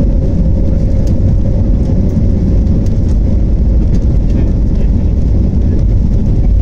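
Airliner cabin noise as the jet rolls along the runway: a steady deep rumble of engines and wheels with a constant whine from the engines.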